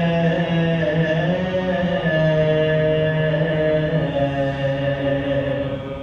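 Male voices chanting a soz, an unaccompanied Urdu mourning elegy, in long held notes that step down in pitch.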